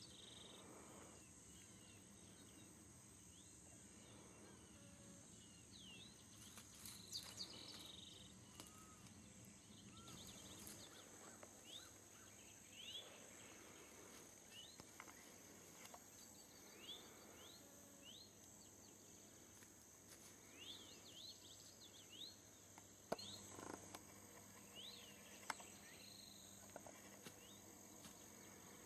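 Faint field ambience: a steady high-pitched insect drone, with short rising chirps every second or two and a few sharp clicks.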